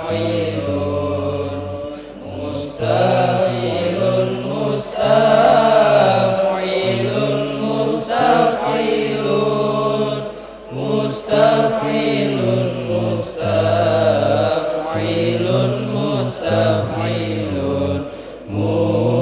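A group of young men chanting Arabic verse in unison, in long melodic phrases separated by short breaths.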